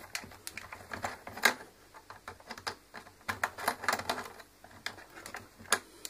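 Irregular light clicks and taps of hands working at a steam iron's plastic housing and small parts while unscrewing it, a few sharper clicks among them.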